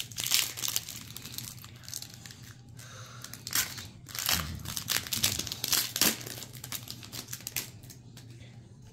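Foil wrapper of a trading-card pack crinkling and being torn open by hand, in irregular crackles with louder clusters about half a second in and again around four to six seconds.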